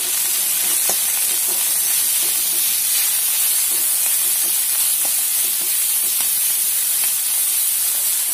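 Mixed vegetables sizzling in hot fat in a kadai as they are stir-fried with a steel spatula: a steady hiss, with a few faint clicks of the spatula against the pan.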